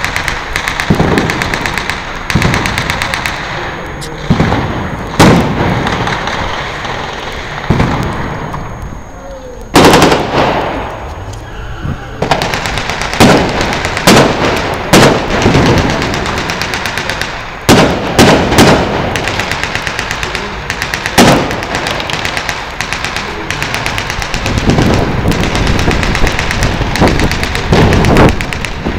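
Battle-reenactment gunfire with blank rounds: single rifle shots and rapid bursts of machine-gun fire, with one heavier bang with a long tail about ten seconds in.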